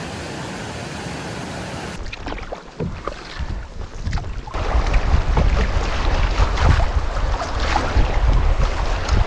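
Waves washing and wind buffeting the microphone on the Lake Superior shore. It is a steady wash at first, then after a cut it turns gusty and much louder from about halfway, with a heavy low rumble and splashy crackle.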